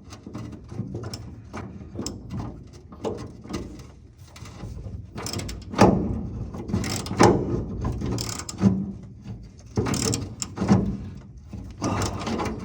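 Ratchet wrench clicking in irregular strokes on a rusted, stuck truck bed bolt, with several louder metal knocks from about six seconds in.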